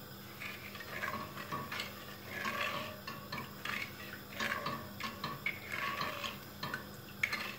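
Silicone spatula stirring milk and sugar in a nonstick pot, in repeated scraping swishes against the pot's bottom and sides, with a few light knocks.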